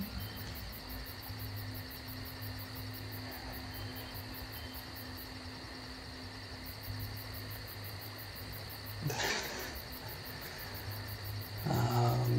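Quiet room tone with a faint steady high-pitched whine and low hum. A short breathy sound comes about nine seconds in, and a faint brief voice sound near the end.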